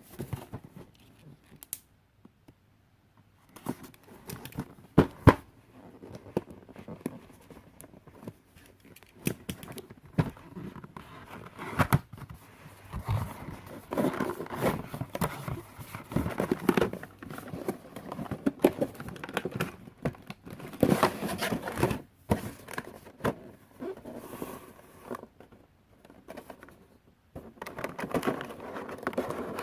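Cardboard and plastic toy packaging being opened by hand: irregular rustling, crinkling and clicking, starting a few seconds in and going on in uneven bursts.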